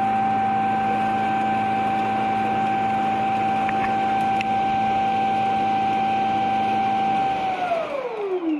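Shark robot vacuum's self-emptying dock running its suction motor with a steady high whine, then spinning down with a falling pitch near the end.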